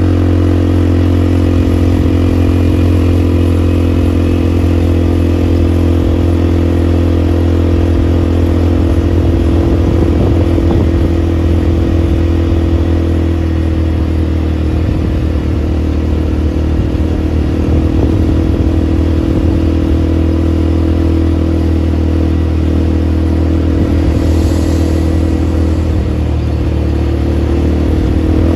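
ATV engine running steadily at an even speed, loud and close, its pitch rising slightly near the end.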